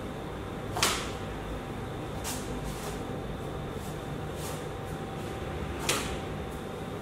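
Sharp snaps from a child's taekwondo poomsae movements, his kicks and stances on a foam mat: two loud ones, about a second in and near the end, and a few fainter ones between. Under them runs a steady room hum with a faint thin tone.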